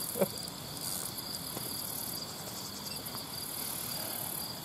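Crickets and other insects chirping in a steady high chorus. A short falling squeak cuts in about a quarter second in.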